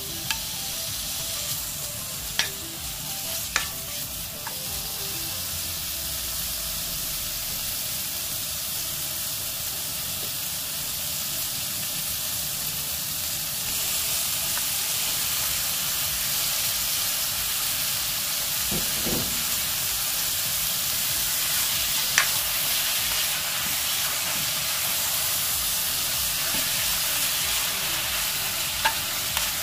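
Cubed pork belly and chopped aged kimchi sizzling in perilla oil in a pot while being stir-fried with a spatula, with a few sharp clicks of the spatula against the pot. The sizzle gets a little louder about halfway through.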